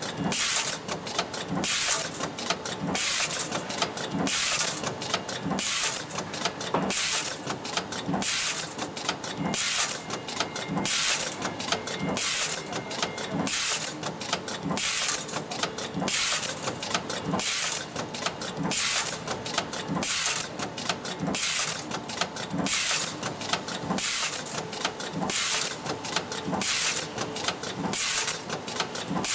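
Automated fork-forming press and its pneumatic feeder running through repeated cycles, with a short hissing burst and clatter about once a second at a steady machine rhythm.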